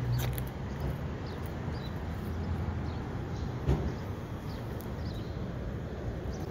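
A cat crunching and chewing dried small fish: scattered small crisp cracks, with one louder crack a little past halfway.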